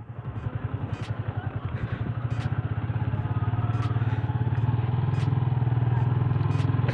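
Motorcycle engine pulling away and running along, its pulsing exhaust growing louder over the first three seconds and then holding steady, with a faint tick about every 0.7 seconds.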